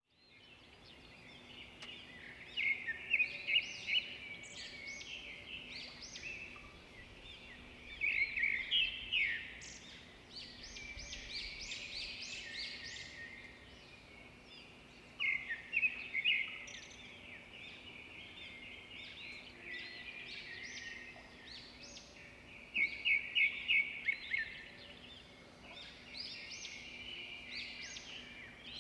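Birds chirping and twittering in quick high-pitched notes, with louder bursts of rapid trills about two seconds in, around eight seconds, around fifteen seconds and around twenty-three seconds.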